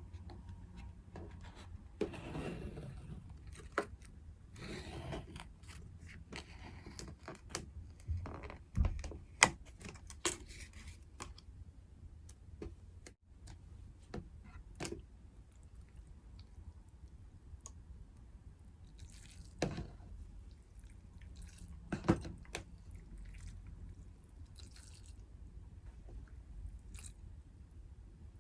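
Close-miked ASMR sounds of a cup ramen meal being handled and eaten: scattered sharp clicks and taps, short rustles and soft wet squishes, with quiet stretches between them.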